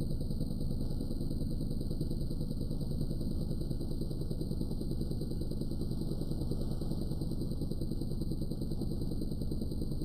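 Microwave-oven transformer rewound with a heavy copper secondary, buzzing loudly and steadily at mains hum under heavy load as it drives current through a nail that glows red-hot between its copper electrodes.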